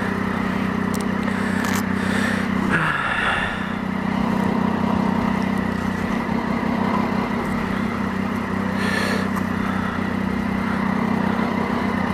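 Triumph Daytona 675's three-cylinder engine idling steadily, with one short drop in pitch about three seconds in.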